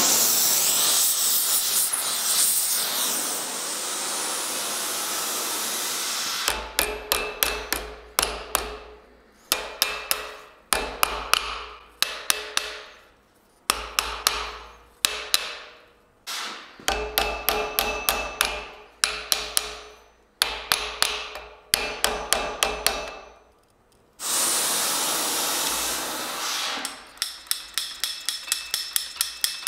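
Hand hammer striking hot steel tong jaws on an anvil, in runs of several blows with short pauses, the anvil ringing with each strike; near the end the blows turn into quicker, lighter taps. A steady rushing noise fills the first six seconds and comes back briefly just before the quick taps.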